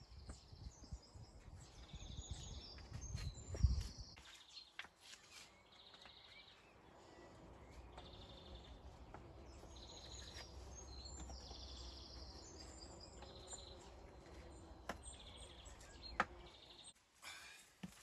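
Birds singing in short, repeated trilled phrases, with a few sharp knocks; the loudest knock comes about four seconds in and another near the end. A low rumble runs underneath through the middle.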